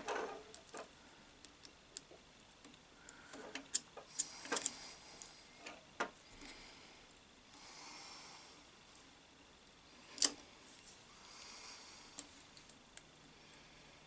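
Scattered small metallic clicks and taps of a screwdriver and terminal fittings being worked in an electric motor's terminal box, a sharp click every second or few, the loudest at the start, near the middle and about two-thirds through.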